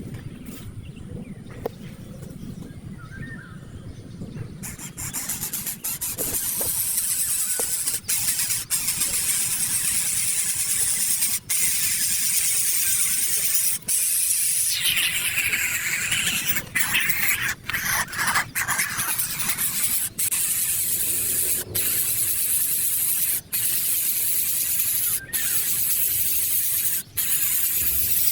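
A baby bird giving a continuous hissing, screeching begging call, broken by short pauses every second or two.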